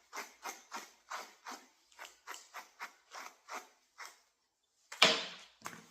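A brush stroking through the fur wig of a bichon model dog, about three strokes a second, stopping about four seconds in; about a second later comes a louder single clatter of handling.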